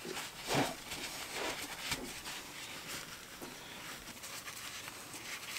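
Soft rustling and rubbing of a paper towel wiping spilled gear oil off an outboard motor's lower gearcase, with a few brief scratchy noises in the first couple of seconds.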